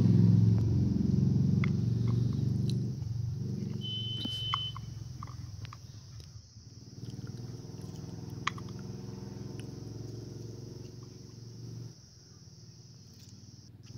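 Faint clicks of a small knife cutting green chillies and garlic cloves over a bowl, under a low steady rumble that slowly fades. A short high beep sounds about four seconds in.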